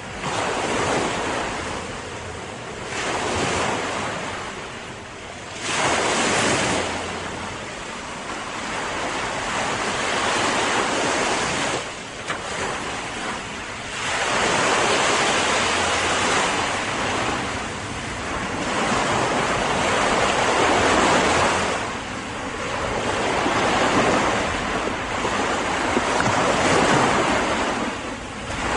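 Sea waves breaking and washing in, the rush of surf swelling and falling back every few seconds.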